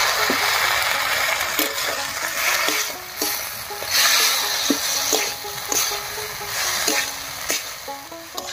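Ground raw-rice paste thinned with water sizzling as it hits the hot metal kadai of spiced banana-stem mash, while a spatula stirs it, scraping and knocking against the pan. The sizzle is loudest at the start and swells again about four seconds in.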